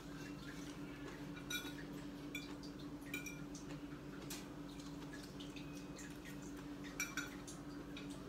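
Eating at the table: scattered light clicks and clinks of utensils and dishes, a few sharper ones spread through, over a steady low hum.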